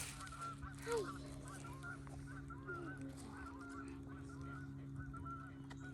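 Faint, many short calls from a flock of birds, repeating several times a second, over a steady low hum.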